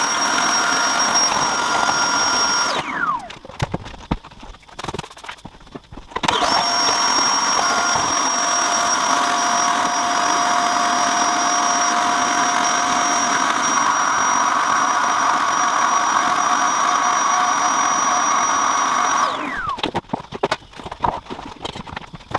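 Vacuum cleaner motor running with a steady whine, switched off about three seconds in and winding down, then switched on again a few seconds later, spinning up and running steadily before winding down once more near the end.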